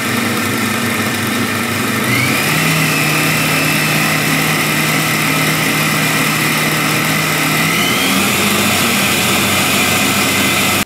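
Yammi food processor's motor and blades whirring as they blend cooked vegetables into purée. It is a loud, steady whine that steps up in pitch about two seconds in and again near the end as the speed is raised from 5 to 7.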